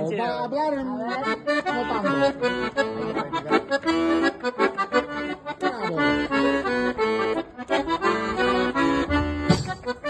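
Piano accordion playing a lively tune, right-hand melody over regularly pulsing bass and chord buttons.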